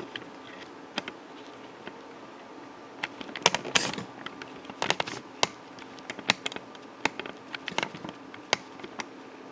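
Scattered light clicks and taps of hands handling small parts and connector clips inside an opened handheld scan tool, over a faint steady hum.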